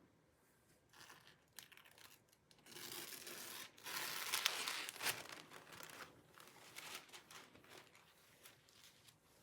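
Packaging being torn and crinkled by hand, with scattered light handling clicks; the longest, loudest stretch of tearing comes about three to five seconds in.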